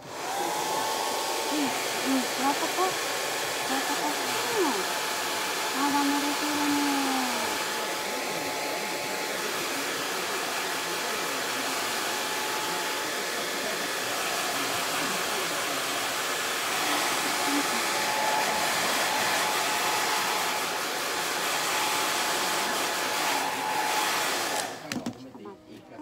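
Hand-held hair dryer blowing steadily as it dries a dog's coat, with a faint steady whine in its rush of air; it is switched on right at the start and cuts off about a second and a half before the end.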